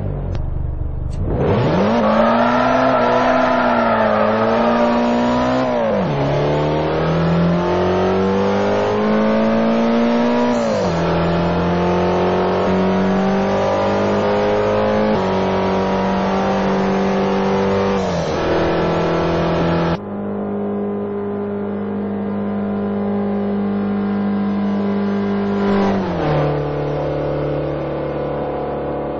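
Hyundai Veloster's four-cylinder engine revving, then pulling under load with its pitch climbing slowly and dropping suddenly at gear changes, holding steady between them. About twenty seconds in the sound turns duller, losing its high end.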